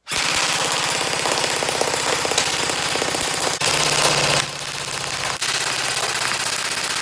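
Airsoft rifle firing continuous full-auto, a rapid steady rattle of shots with BBs hitting cardboard targets backed by plywood. There are a couple of brief breaks in the fire about halfway through.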